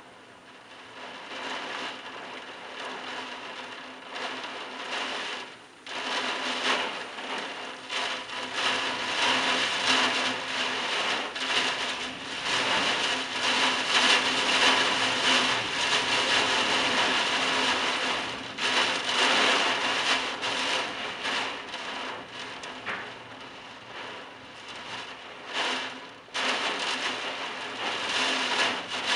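Violent rainstorm: strong wind gusts driving heavy rain, a rough rushing noise that surges and eases in waves. It is loudest about halfway through and drops briefly about six seconds in and again near the end.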